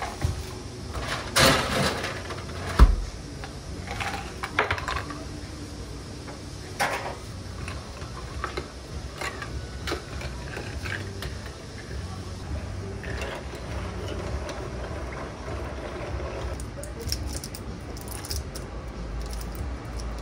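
Plastic bottle and its screw cap being handled and closed: a quick clatter of clicks and knocks in the first few seconds, the loudest a single low knock, then lighter scattered clicks over a steady low hum.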